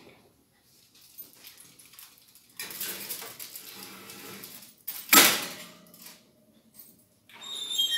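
A foil-covered baking dish being slid into an oven onto the metal rack, with scraping and rattling, then one loud metallic clunk about five seconds in.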